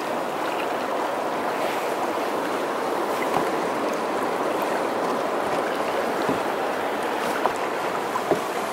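Fast river water rushing and splashing along the hull of a moving canoe, a steady wash of sound. A few light knocks come near the end.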